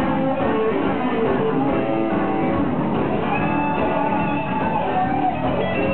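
Live band playing, with electric guitar, bass guitar and drums.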